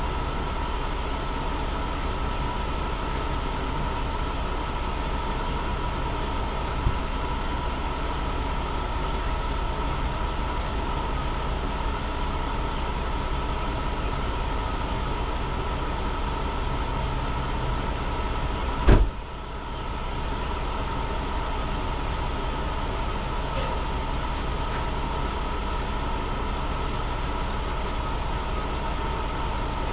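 Car engine idling steadily with a new starter fitted, left running to recharge its battery. A single sharp knock sounds about 19 seconds in.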